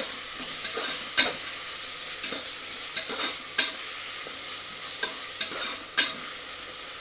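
Chopped tomatoes and green chillies sizzling in hot oil in a pressure cooker as they are stirred, with sharp knocks and scrapes of the stirring spoon against the pot, the loudest at about one, three and a half and six seconds in. The tomatoes are being sautéed until they soften to a mush.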